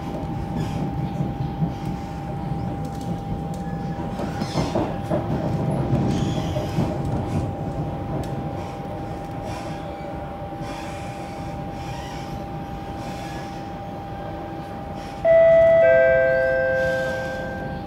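Siemens C651 electric train running along the track, heard from inside the carriage: a steady rumble of wheels on rail with one constant high whine. About three seconds before the end, a loud electronic chime of several tones sounds and fades, the in-car chime that comes before a station announcement.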